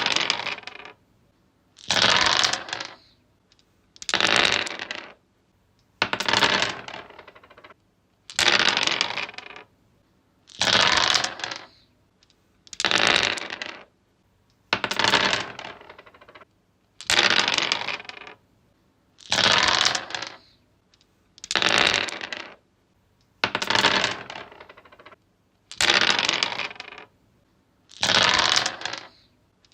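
Dice thrown and rolling on a wooden surface, one roll about every two seconds: each roll starts with a sharp clatter and tumbles to a stop within about a second.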